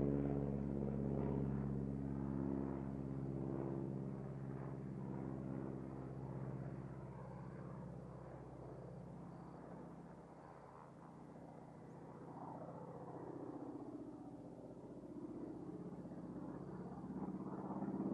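A North American SNJ Texan's Pratt & Whitney R-1340 radial engine and propeller droning in flight, loud at first, fading to faint about ten seconds in, then building again near the end with some rise and fall in pitch.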